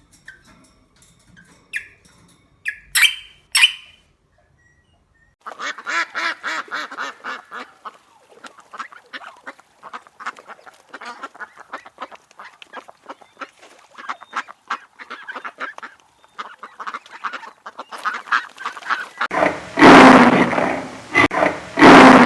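A flock of birds calling in a fast, continuous chatter of short repeated calls. A much louder animal call comes in near the end.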